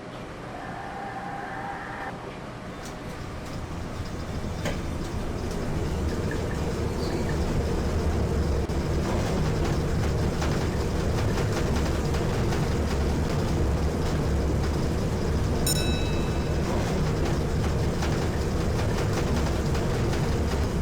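1970s Hitachi lift car riding between floors: a low hum and rumble that builds over the first several seconds and then runs steady, with a short ding about two-thirds of the way in.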